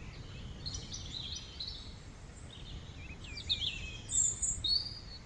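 Small songbirds chirping and twittering in short, quick phrases, busiest about a second in and again around three to four and a half seconds, over a faint, steady low background rumble.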